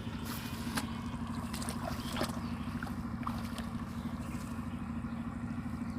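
A small motor running steadily: a constant hum over a low rumble, with a few faint clicks.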